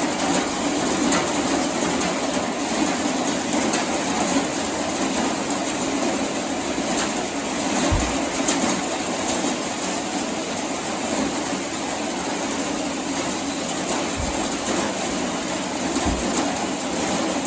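Tractor and farm machinery running steadily, with a few dull low thumps, once around the middle and twice near the end.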